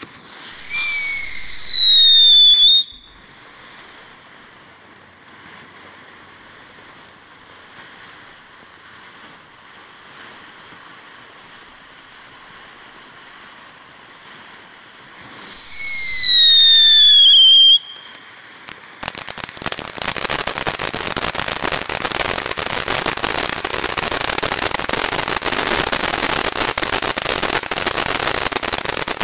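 Shogun Blazin' Fire ground fountain firework going off: two loud, falling whistles of about two seconds each, one near the start and one about 16 seconds in, with a quieter hiss of spraying sparks between them. From about 19 seconds on, loud, dense crackling.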